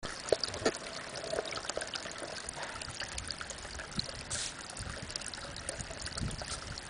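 Spring water falling in a thin stream from a mossy rock face into a pond: a steady trickling splash, with a few drip plinks near the start.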